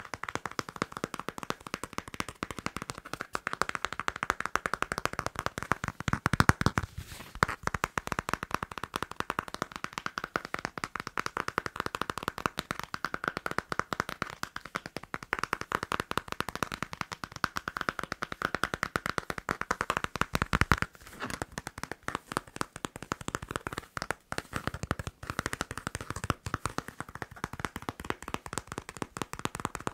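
Fast tapping and scratching on a passport: a dense, rapid run of small clicks and scratches that goes on without a break.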